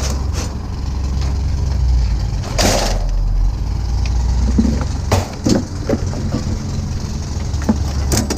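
A vehicle engine runs with a steady low rumble. A brief scraping, sliding noise comes about two and a half seconds in, and a few short knocks and clunks follow later.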